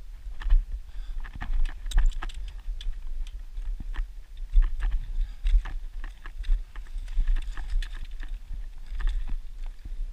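Scrambling over rock: irregular clicks, knocks and crunches of boots and a trekking pole on loose stones close to the microphone, over low thumps and rumble on the microphone.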